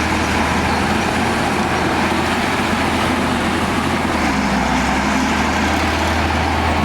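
A bulldozer's diesel engine runs steadily under load, a continuous low drone.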